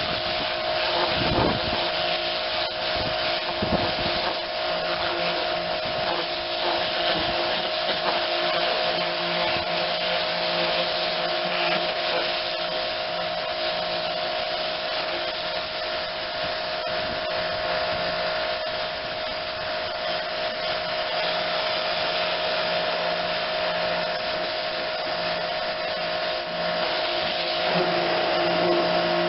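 A small pressure washer running steadily, its motor and pump giving a constant whine under the hiss of the water jet spraying onto the tractor.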